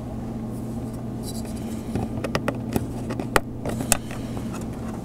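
Handling clicks and light taps as a laptop's copper heat-pipe heat sink and fan assembly is positioned and seated onto the motherboard, with several sharp clicks bunched between about two and four seconds in. A steady low hum lies underneath.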